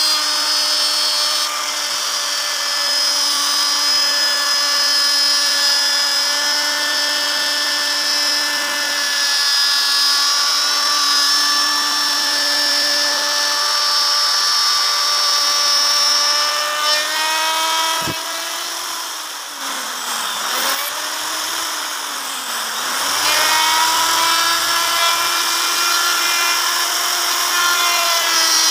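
Makita plunge router running at high speed, a steady high whine, as its bit cuts grooves into a wooden panel. A sharp click comes about two-thirds through, then the motor's pitch sags and wavers for a few seconds before climbing back to full speed.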